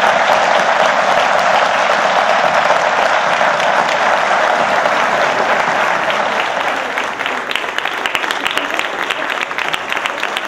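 A large audience applauding steadily. In the second half it thins a little and single claps stand out.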